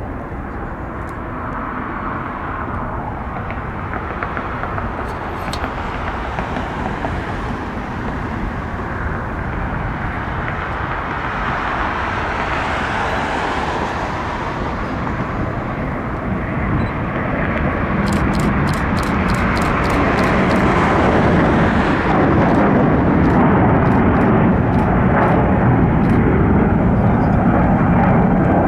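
Airbus A350-1000's Rolls-Royce Trent XWB engines at takeoff power, heard from outside as the airliner rolls down the runway: a steady jet rush that slowly grows louder, with a deeper rumble building in the last third.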